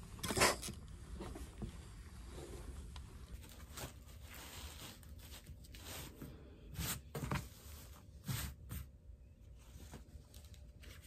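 Soft handling sounds: a short puff of noise about half a second in, then scattered rustles and light flaps as a large sheet of leather is spread out and smoothed by hand on a wooden workbench.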